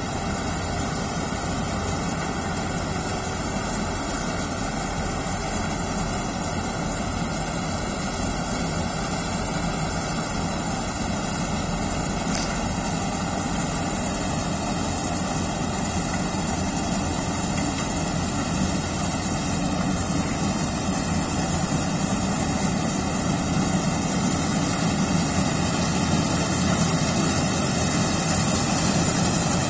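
Kartar 4000 combine harvester running under load as it cuts paddy: a steady engine and machinery noise that grows louder over the last third as the harvester comes closer.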